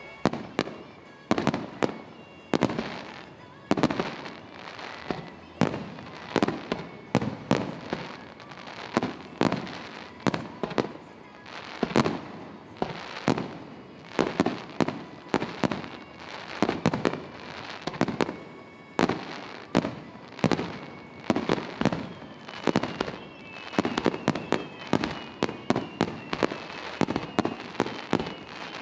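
Aerial firework shells bursting in quick succession, about one to two bangs a second, each with an echoing tail. Thin falling whistles join in over the second half.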